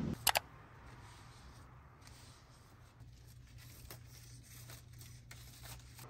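Kitchen tongs tossing salad in a plastic mixing bowl: two sharp clicks about a third of a second in, then a few faint, scattered clicks over a low steady hum.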